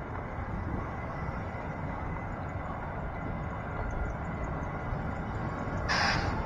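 Street noise outdoors: cars driving past on the road over a steady low rumble, with a short burst of hiss about six seconds in.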